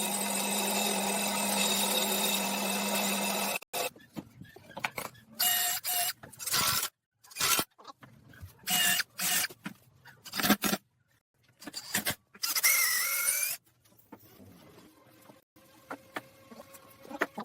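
A power tool running steadily for the first few seconds and stopping abruptly, then a string of short, separate workshop noises with sudden silences between them.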